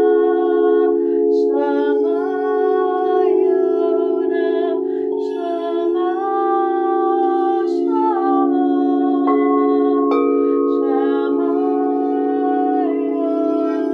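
Singing bowls sounding a steady, overlapping drone, with a voice singing long wordless notes that shift and glide in pitch over it.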